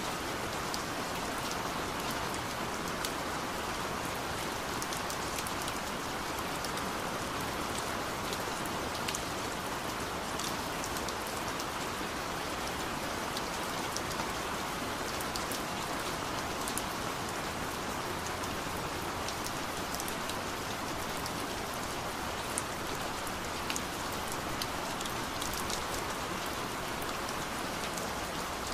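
Steady hiss like rain on a surface, with many scattered faint ticks.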